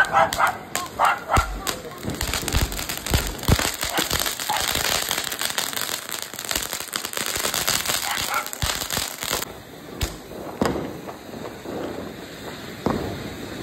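Ground firecrackers and spark fountains going off: a fast run of sharp cracks and pops over a hiss of spraying sparks. About nine seconds in it cuts off abruptly, leaving a few scattered bangs.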